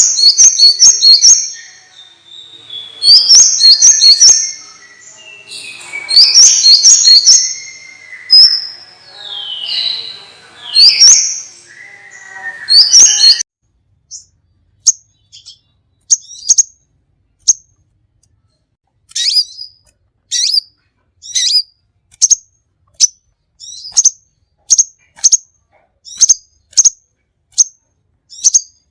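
Songbirds chirping and whistling: a busy, overlapping run of quick high chirps and sliding whistles, then about halfway through the sound switches abruptly to single short, sharp chirps repeated about once or twice a second with dead silence between them.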